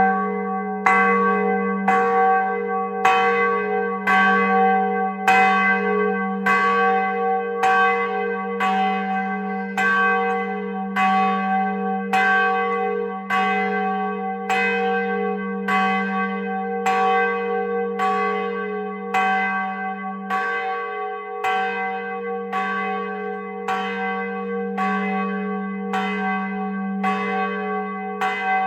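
Large old church bell, newly reassembled, rung for its first time: struck over and over at a steady, even rhythm. Each stroke rings on into the next, over a sustained low hum. Loud.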